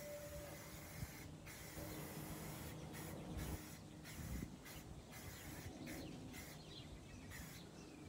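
Aerosol spray-paint can hissing in a series of short bursts as green paint is sprayed onto a metal part.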